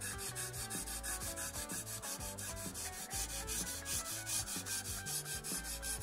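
Oiled 600-grit Lansky synthetic hone rubbed in quick, even back-and-forth strokes across the bevel of a steel plane iron, sharpening it. Soft background music underneath.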